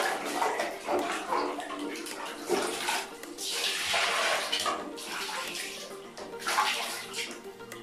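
Water splashing: a plastic dipper scooping from a bucket of water and pouring into a stainless steel basin, in irregular bursts, the longest pour about three seconds in.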